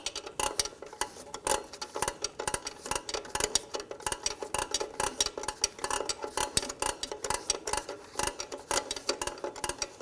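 Rear drum brake star-wheel adjuster being turned with a brake adjuster tool through the backing plate, its spring-loaded lock lever clicking over the star wheel's teeth in a rapid, irregular run of clicks. The clicking is the sign that the adjuster is turning in the right direction, spreading the shoes out toward the drum.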